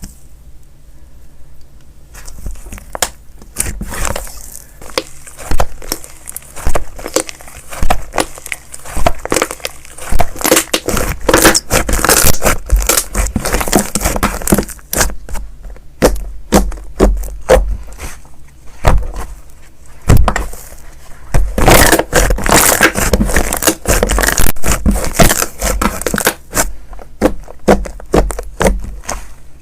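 Slime being squeezed and stretched by hand, giving dense runs of crackling and popping clicks that start about two seconds in.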